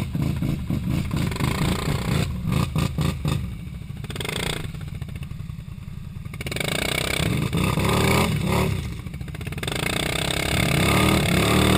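ATV engines revving hard and unevenly while the quads work through deep mud, the revs rising and falling in repeated pulls and growing louder late on.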